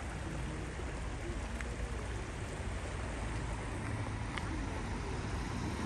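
Steady outdoor background noise: an even hiss over a low rumble, with a couple of faint clicks.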